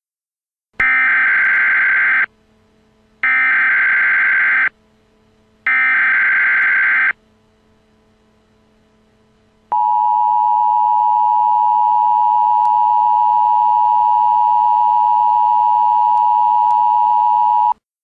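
Emergency Alert System SAME header: three short bursts of warbling digital data tones, each about a second and a half long, a second apart. About ten seconds in, the steady two-tone EAS attention signal sounds for about eight seconds. Together they open a new alert, here a Severe Weather Statement.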